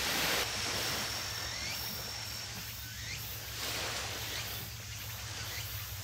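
Waterfront outdoor ambience: a steady low rumble with swells of rushing noise, about a second in and again a little before four seconds, and insects chirping in a fast high pulse.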